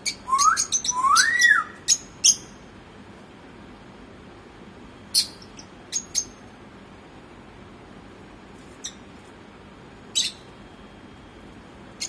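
African grey parrot calling: two rising-and-falling whistles in the first couple of seconds among a flurry of sharp clicks and squeaks, then a few single sharp chirps spaced a second or more apart.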